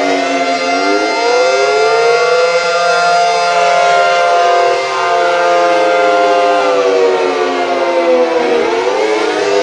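Synthesized Federal civil defense siren with a 9/12-port rotor, wailing as a dissonant two-note chord. The pitch rises for about three seconds, falls slowly for several seconds, and starts climbing again near the end.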